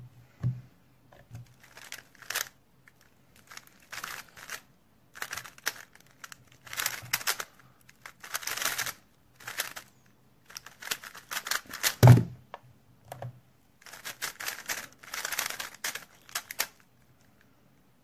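A plastic 3x3 speedcube being turned fast by hand: its layers clatter and click in quick bursts of turns, broken by short pauses. There are dull thumps at the very start and, louder, about twelve seconds in.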